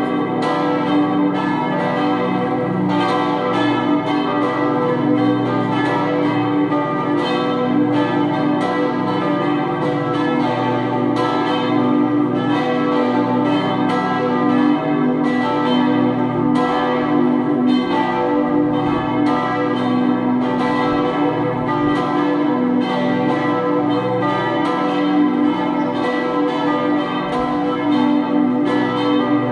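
Full peal of four swinging church bells, the two largest in D and B, ringing together with overlapping strikes and no set pattern, their deep tones sounding on under each new stroke.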